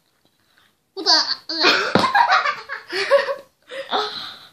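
Girls laughing hard, starting about a second in, with a short sharp click near the middle.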